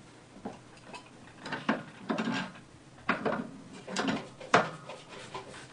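Wrench tightening the top of a steel adjustable basement support jack: about six irregular metal clinks and scrapes.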